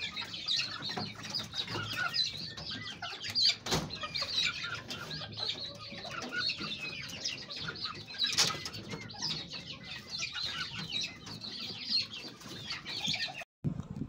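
Chickens clucking over a dense, continuous high chirping from many birds, with two brief sharp sounds, about four and eight seconds in.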